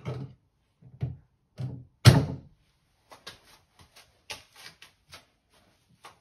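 Wooden knocks and thuds as an oak-slat door panel is handled and pressed into place against a cupboard carcass. The loudest thud comes about two seconds in, followed by lighter taps and clicks.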